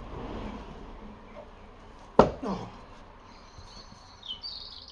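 A sharp wooden knock about two seconds in, as an ash log is handled and set down, over low background noise.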